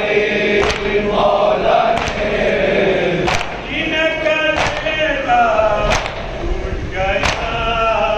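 Men chanting a noha, a Shia mourning lament, together in a group, with a sharp slap of chest-beating (matam) struck in unison about every second and a quarter, six times.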